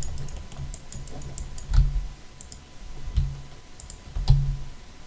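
Computer mouse and keyboard clicks at a desk while working in 3D software, with three heavier dull thumps about two, three and four seconds in.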